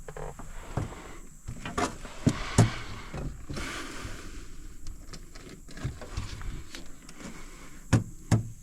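Scattered knocks and thumps around a fishing boat while a bass is landed and handled, the loudest about two and a half seconds in and a pair more near the end.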